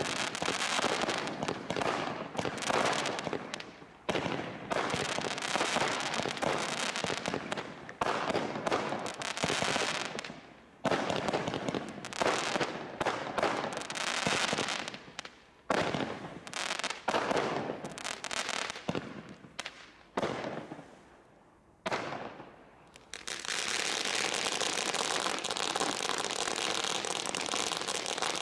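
Consumer fireworks from a barrage selection box firing: rapid volleys of shots and bursts in runs with short pauses between them, thinning out after about twenty seconds. A steady, even hiss takes over for the last few seconds.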